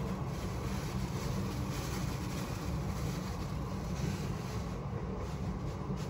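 Gas hob burner running on a high flame: a steady low rumble.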